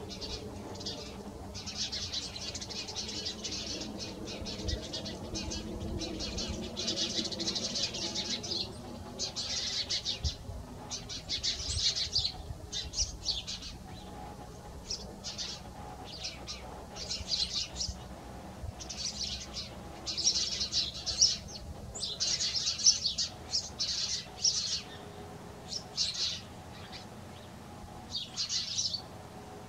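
Small birds chirping and twittering, short high-pitched calls coming in clusters every second or so, over a faint steady low hum.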